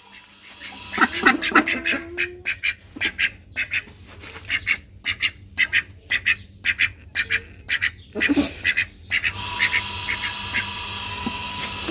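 Domestic ducks quacking in a quick run of short, sharp calls, several a second. About nine seconds in the calls thin out and a steady hiss with a faint thin whine takes over, with a few more calls.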